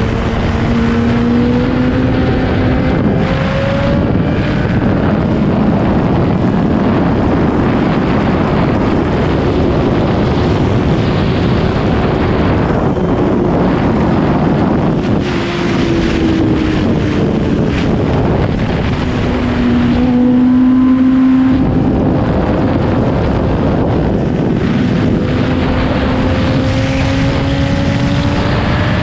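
Sport motorcycle engine pulling along at speed, its pitch rising and falling with throttle and gear changes through the bends, under heavy wind rush on the microphone. The engine note is loudest a little past two-thirds of the way through, then drops away briefly.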